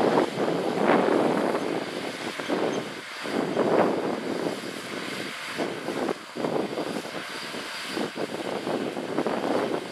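John Deere S680 combine and 9360R four-wheel-drive tractor running together while harvesting wheat, the combine unloading grain into the tractor's grain cart on the move. The machinery makes a steady, heavy din that swells and fades.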